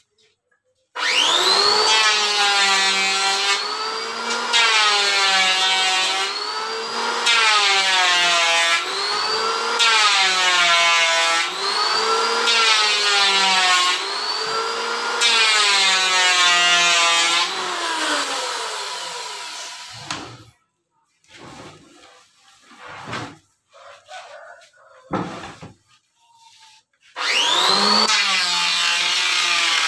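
Electric wood planer running and cutting in repeated passes, its motor pitch dipping under load and recovering about every two seconds. It stops about twenty seconds in, a few short knocks follow, and the planer starts up again near the end.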